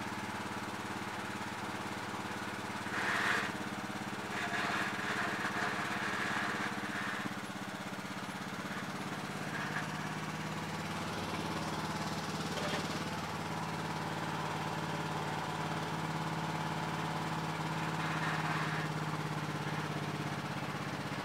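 Yard Machines lawn tractor's 20 hp Briggs & Stratton single-cylinder overhead-valve engine running steadily while the tractor is driven in reverse and forward through its CVT. The noise rises briefly about three seconds in and again around five to seven seconds in.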